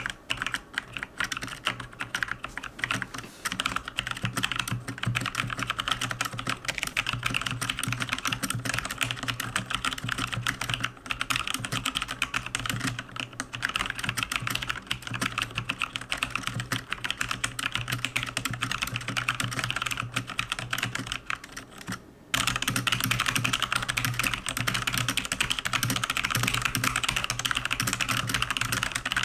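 Fast, continuous typing on a Logitech G413 Carbon mechanical keyboard with Romer-G Tactile switches: a dense stream of key clicks. A short pause comes a little after twenty seconds in, and the typing is louder after it.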